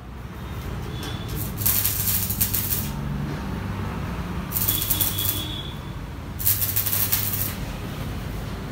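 Three rasping metal-on-metal scrapes, each about a second long, as a hand tool is drawn across sheet metal.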